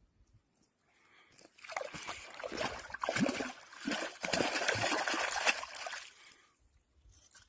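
Water splashing and sloshing for about four and a half seconds, starting a couple of seconds in and stopping suddenly.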